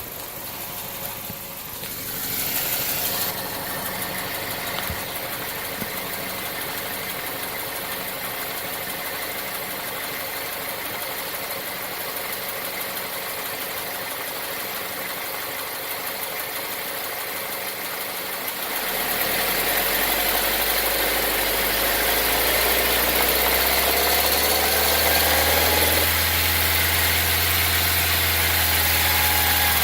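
2018 Nissan Versa's HR16DE four-cylinder engine running steadily, with a brief rush of noise about two seconds in. About two-thirds of the way through it gets louder with a deep hum and a rising pitch as it comes under load, and the pitch steps down once and climbs again near the end. The owner believes the engine is knocking under load.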